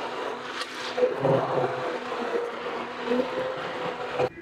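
Stick blender motor running steadily in thick soap batter, with a faint held tone under the whir, then cutting off suddenly near the end. It is blending a citric acid solution into olive oil and tallow soap batter that has passed medium trace.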